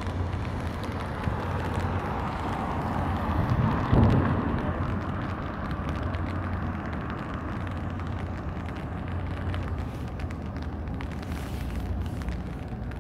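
Steady outdoor rumble with a low hum, swelling to a loud peak about four seconds in and then settling.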